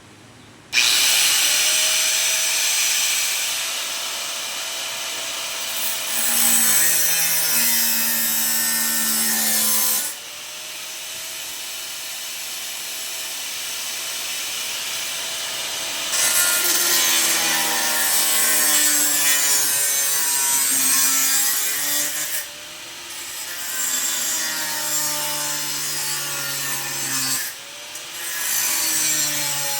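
Angle grinder with a cutting disc cutting into the steel body panel of a Triumph TR7. It starts suddenly with the motor's whine rising as it spins up. It is stopped and restarted several times, and its pitch shifts as the disc bites into the metal.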